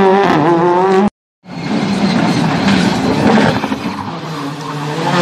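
Rally car engine running at high revs as the car drives past. About a second in the sound cuts out briefly, then another rally car's engine comes in, its pitch climbing again near the end.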